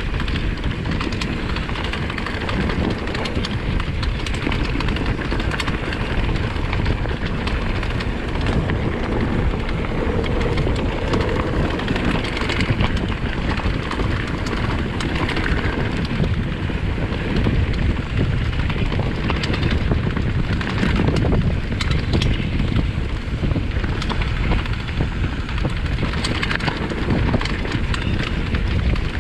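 Mountain bike descending a rough trail: tyres running over rocks and roots with constant rattling and sharp knocks from the bike, over a steady rush of wind on the microphone.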